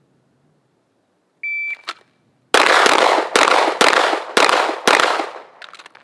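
Shot timer's start beep, one short high tone, then about a second later a rapid string of about five 9mm shots from a Glock 17 pistol, each with a ringing echo.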